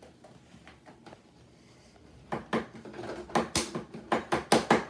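A utensil clicking and knocking against a bowl while slime is mixed: quiet at first, then a quick run of about a dozen sharp clicks starting about two seconds in.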